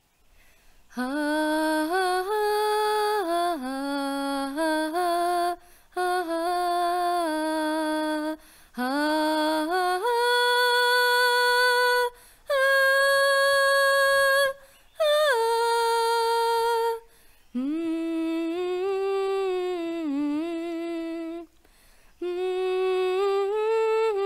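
A woman humming a slow, gentle melody in about seven phrases of two to four seconds, with short breaks for breath between them.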